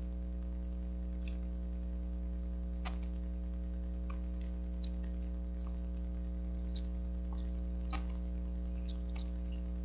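Steady electrical mains hum, with a dozen faint, scattered clicks from a plastic mechanical pencil being handled and its eraser worked.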